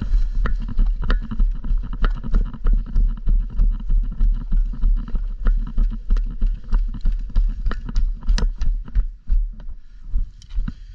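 Running footsteps, about three strides a second, each stride a heavy thud on the body-worn microphone with sharp clicks and rattles of carried gear; the pace eases near the end.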